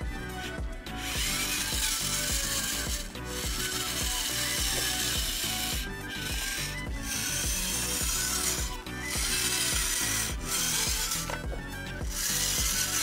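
Electric drive motor and gearbox of a remote-control model tractor whirring and grinding in stretches of a few seconds as it drives through sand, cutting out briefly between them as the throttle is let off.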